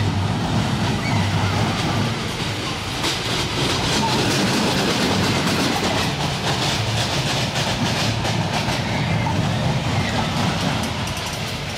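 Train of a small dragon-themed family roller coaster running along its steel track: a steady rumble of wheels on the rails with repeated light clicks.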